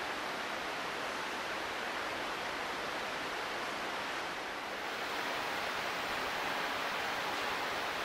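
Steady rush of falling water from nearby waterfalls, an even hiss with no breaks, brightening slightly about five seconds in.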